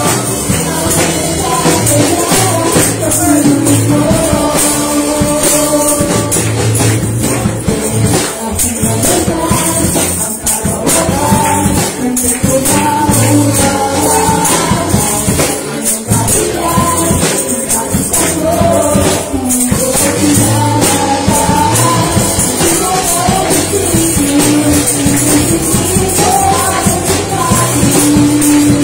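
Live worship band playing: electric and bass guitars under a woman's sung melody, with a tambourine shaken along in a steady jingle.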